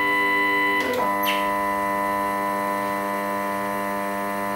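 Stepper motors of a home-built Momus CNC router driving the axes to their home switches, giving a steady multi-tone whine. About a second in there is a brief click and the pitch shifts.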